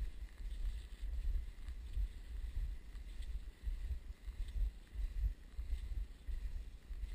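Wind buffeting the microphone of a camera carried by a moving skier, a gusting low rumble, with faint swishes of skis gliding on snow about once a second.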